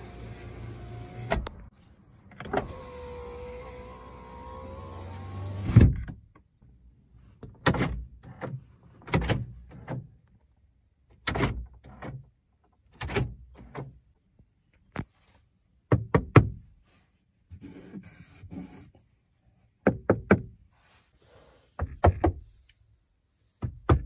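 2007 Kia Picanto's electric window motor running the glass twice, with a steady whine that ends in a thump each time the glass reaches its stop. After that comes a series of short knocks, mostly in pairs, from a hand knocking on the hard plastic interior trim.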